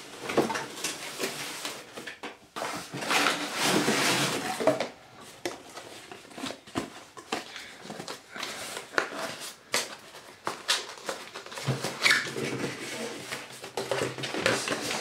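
Cardboard packaging inserts being handled and pulled apart: irregular rustling and scraping of cardboard with scattered light knocks, loudest a few seconds in.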